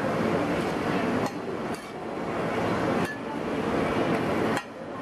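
Two metal spatulas scraping and clinking against a flat oiled griddle as a thin roti is lifted and folded, over the sizzle of frying oil. The scraping comes in several strokes, with a few sharp clinks, and it drops off briefly near the end.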